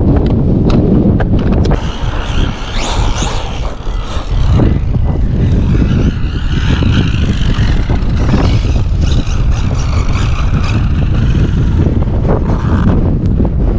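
Traxxas Maxx V2 RC monster truck's brushless motor and drivetrain whining as it is driven, rising sharply in pitch about three seconds in as it accelerates. Heavy wind rumble on the microphone runs underneath.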